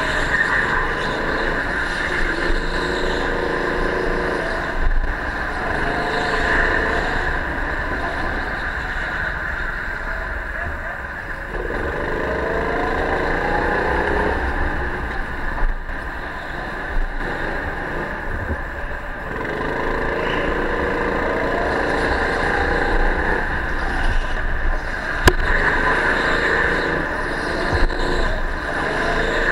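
Go-kart engine heard from the driver's seat, its pitch climbing several times as the kart accelerates down the straights and falling back into the corners.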